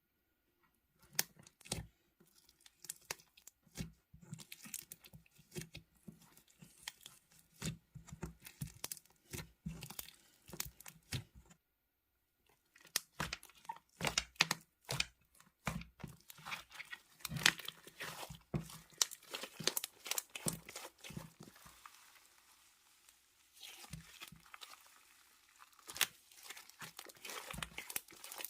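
Slime being squeezed, stretched and pressed by hand, giving irregular sharp crackles and pops. It pauses briefly a little before halfway, then comes back denser.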